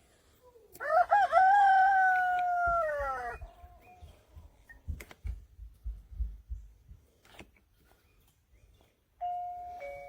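A rooster crowing once: a few short broken notes, then a long drawn-out note that slowly falls in pitch. After it come a few dull thumps, and near the end a two-note doorbell chime starts.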